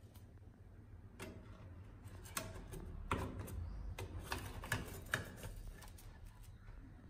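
Slotted metal kitchen tongs clicking and tapping against the plates of an electric sandwich maker as they grip and lift out a toasted sandwich: about a dozen irregular sharp clicks, beginning about a second in.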